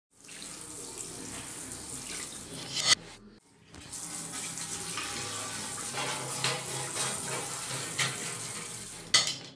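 Water spraying from a handheld sink sprayer onto a rusty hand-saw blade in a sink while it is scrubbed with a brush. There is a short break about three seconds in, and a few sharp knocks of the blade or sprayer against the basin.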